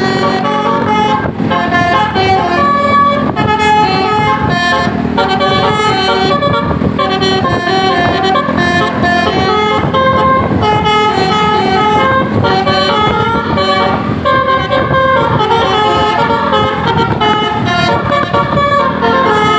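Telolet Basuri musical bus horn playing a tune of quick stepping notes, sounding without a break.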